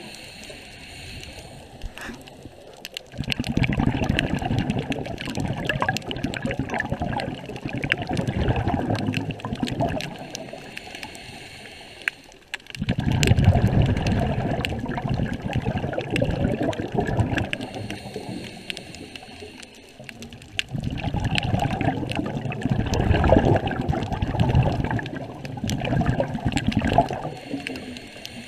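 Scuba diver's exhaled bubbles from the regulator, gurgling underwater in three long bursts with quieter pauses between breaths. Faint clicks run throughout.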